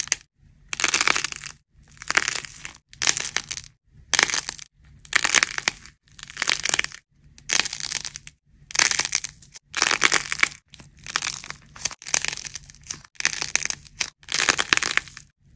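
Dried plaster clay being cracked and peeled off round balls by hand: dense crackling and crunching in bursts about once a second, each separated by a brief silent gap.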